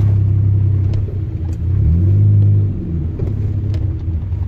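Car engine running at low speed while reversing, with a brief rise in revs about two seconds in that settles back down.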